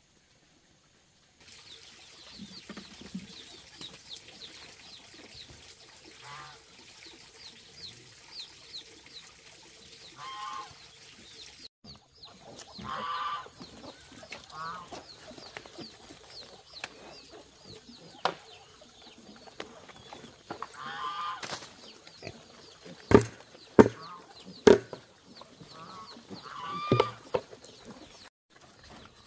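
Chickens clucking in short bursts, with a steady run of quick high chirps behind them. Three or four sharp knocks near the end are the loudest sounds.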